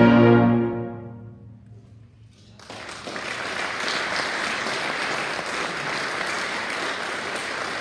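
Brass band holding a final chord that fades away over about two seconds, then after a brief hush, audience applause breaks out and carries on steadily.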